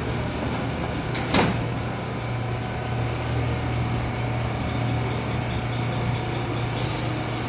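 R179 subway train standing at the platform with its doors open: a steady low hum from its running equipment and ventilation, with a single knock about a second and a half in. A hiss of air starts near the end.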